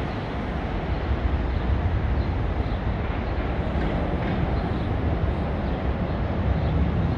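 Boeing 767-300ER freighter's two General Electric CF6-80C2 turbofan engines at takeoff thrust during climb-out: a steady, heavy low rumble that grows slightly louder about a second in.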